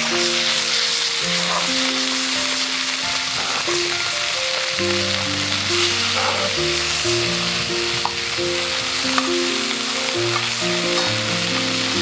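Vegetables sizzling hard in a hot black iron skillet as liquid is poured in and flashes to steam, a steady hiss. Soft background music plays underneath, its bass line coming in about five seconds in.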